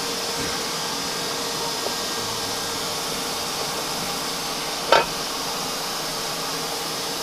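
Steady fan-like shop hiss with a faint hum, and one sharp metal clank about five seconds in as the machined steel ring and cast iron pump housing are handled together on the machine table.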